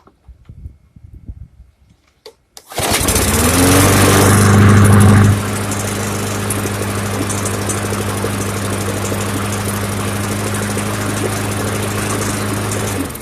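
Troy-Bilt push mower's 140cc Briggs & Stratton engine starting on a test fire after a carburetor clean. It catches about three seconds in, revs up briefly, then settles into steady running and shuts off near the end.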